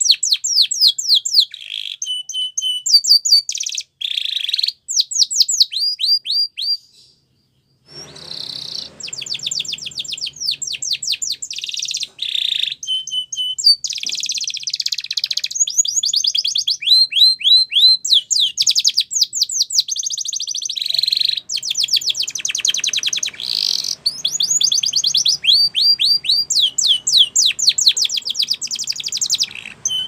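Spanish Timbrado canary singing: fast trills of repeated downward-sweeping notes, mixed with short held whistles and buzzy rolls. The song breaks off for about a second, roughly seven seconds in.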